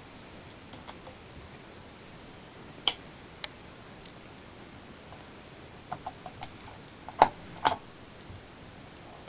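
Typewriter clacking in irregular, scattered strikes: two single clacks, a quick run of small ones, then the two loudest strikes near the end.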